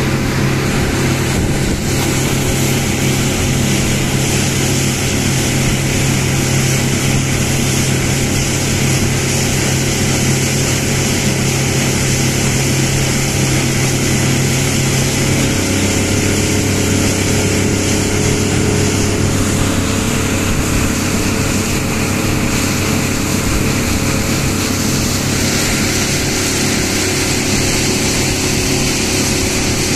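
Small motorboat's engine running steadily under way, with wind and rushing water over it; the engine note drops a little about halfway through.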